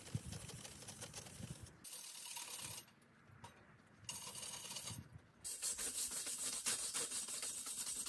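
Hand-held steel wire brush scrubbing surface rust off a steel bandsaw sawmill blade: rapid scratchy strokes. It comes in short stretches in the first half, then turns continuous and louder from about halfway through.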